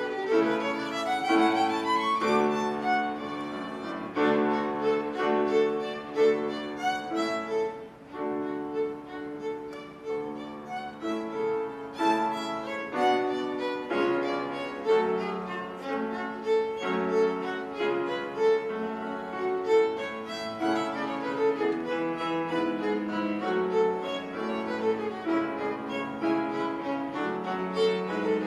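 Violin playing a fast, lively passage of quick bowed notes, with piano accompaniment.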